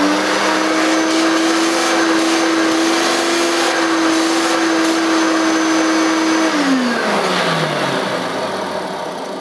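Hoover Turbopower U1050 upright vacuum cleaner's 500-watt motor running at full speed with the hose and extension tube attached, a steady whine. About six and a half seconds in it is switched off and the whine falls away as the motor winds down.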